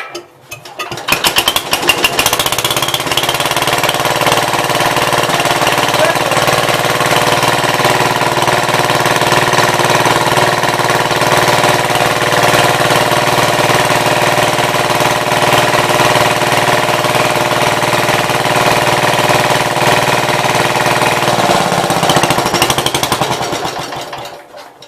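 1966 Gravely C10 tractor engine running steadily at idle on a temporary battery ignition coil, fitted to cure a no-spark fault. It picks up about a second in and cuts off shortly before the end, where the coil wire is pulled to stop it.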